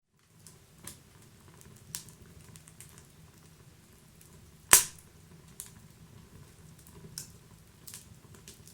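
Wood fire crackling: scattered sharp pops and snaps over a low steady rumble, with one much louder pop about halfway through.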